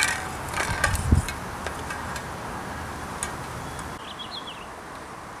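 A few knocks and a low thump in the first second or so as the cardboard-box set falls over, then faint outdoor background with scattered soft ticks. About four seconds in, a bird chirps briefly.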